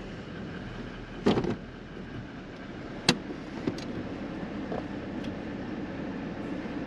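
Four-wheel drive's engine idling, heard from inside the cab, with a short thump about a second in and a sharp click about three seconds in, followed by a few faint ticks.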